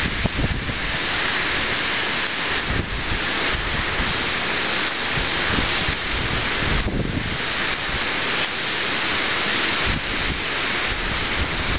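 Steady rain and gusting wind of a tropical storm, with the wind buffeting the microphone in uneven low rumbles.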